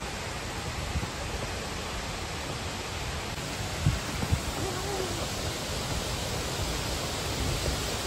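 Steady rush of a large waterfall, Wachirathan Waterfall, an even roar of falling water with no let-up. A couple of dull thumps come about four seconds in.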